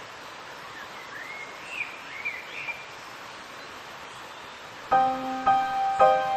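Steady outdoor background hiss with a few short bird chirps. About five seconds in, music starts with struck, ringing bell-like notes.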